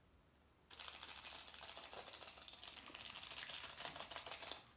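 A small plastic sachet from the instant noodles crinkling as it is torn open and shaken out over the noodles, a dense crackle that starts about a second in and stops abruptly just before the end.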